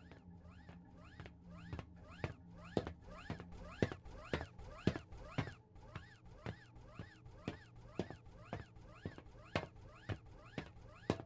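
A steady run of sharp taps, about two strong ones a second with lighter ones between, over a low steady hum.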